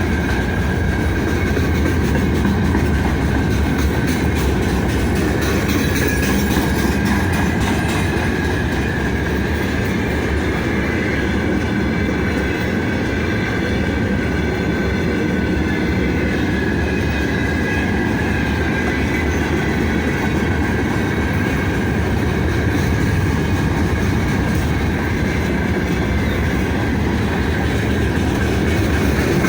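Freight train wagons rolling past with a steady rumble and the clatter of wheels over the rail joints. A faint, thin squeal from the wheels runs through it.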